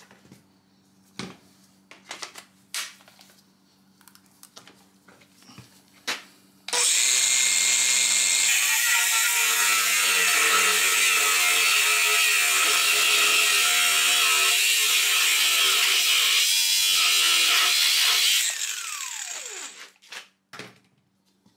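Cordless angle grinder's cutting disc slicing through the steel exhaust pipe at a catalytic converter: a loud, steady grinding for about twelve seconds, then the disc winding down with a falling pitch. A few light clicks and knocks from handling the tool come before the cut starts.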